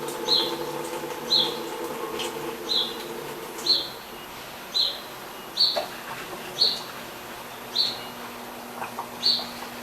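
A small bird chirping about once a second, short high chirps at uneven spacing. Under the first few seconds, a washing machine's steady low hum runs and then stops.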